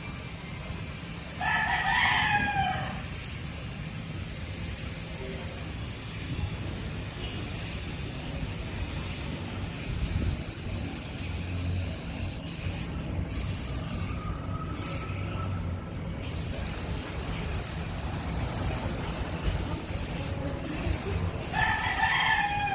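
Rooster crowing twice, once about two seconds in and again near the end, over a steady low hum and hiss.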